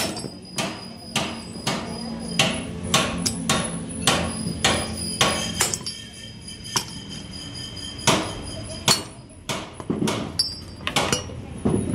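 Sledgehammer blows on steel, driving a bushing into a truck torque rod's eye on a stand: a steady run of ringing metal strikes about two a second, then slower, uneven blows over the second half.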